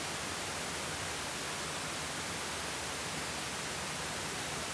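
Steady, even hiss with no distinct event: the room tone and recording noise of a quiet pause.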